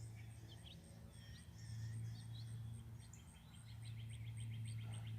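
Wild songbirds chirping faintly, with a fast, even trill starting about three seconds in. A high, steadily pulsing chirp runs throughout, over a low steady hum.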